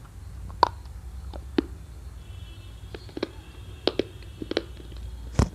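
Dry multani mitti (fuller's earth) being bitten and crunched: about six sharp, irregular crunches, the loudest near the end, over a steady low hum.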